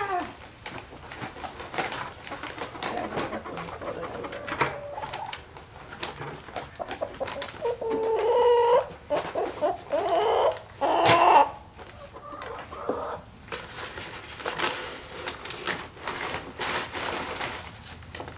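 Laying hens clucking, with a couple of longer calls about eight and eleven seconds in, the later one the loudest, over scattered clicks and rustles of grain being handled.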